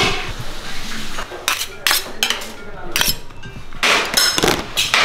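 Metal kitchenware clattering: a string of sharp clinks and knocks of a ladle and utensils against metal cooking pots, thickest near the end.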